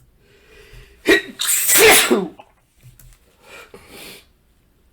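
A man sneezing loudly once, about a second in, breaking out of a build-up from a tickle in his nose.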